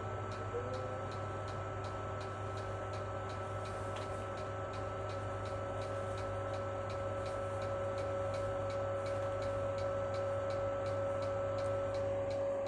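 Wall-climbing robot's electric drive running as it climbs a door: a steady whine over a low hum, with a brief rise in pitch about half a second in. A regular ticking of about three clicks a second runs under it.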